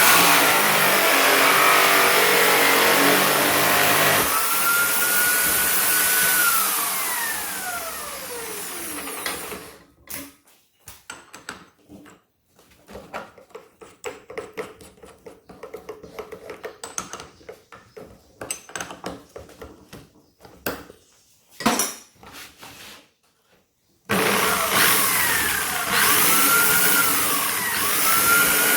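Electric drill motor running, its whine sliding up and down in pitch as the speed changes, then stopping about ten seconds in. A quieter stretch of clicks and knocks follows, and the motor starts up again loudly near the end.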